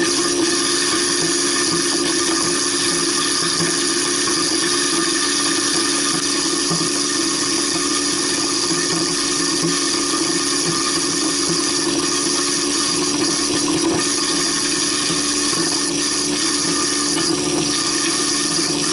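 Waste King 1-horsepower garbage disposal running steadily with water flowing, grinding up the last pieces of a lamb shank bone.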